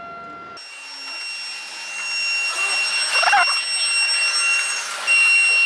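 A steady high-pitched mechanical whine over a hiss, growing louder, with a short wavering squeak about three seconds in.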